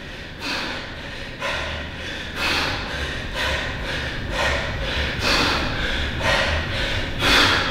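A man breathing hard and deep from exertion while doing bent-over dumbbell rows, with a forceful breath roughly every second.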